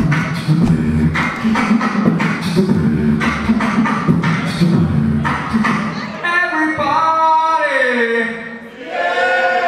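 Live beatboxing into a microphone, played through a stage PA with a foot-pedal effects board: a steady vocal beat for about six seconds, then sung tones sliding down in pitch over it, dipping briefly near the end before the voice comes back.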